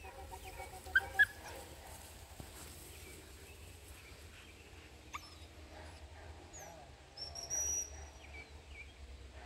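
A puppy yips twice in quick succession about a second in. Near the end a short, steady, high whistle note sounds.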